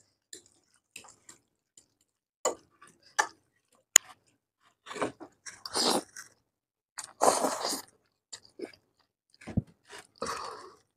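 Spicy ramen noodles being eaten close to the microphone: chewing and slurping in bursts of about a second, with a single sharp click about four seconds in.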